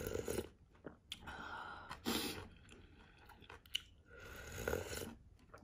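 A person eating instant ramyeon close to the microphone: wet chewing and mouth sounds in about four short bouts.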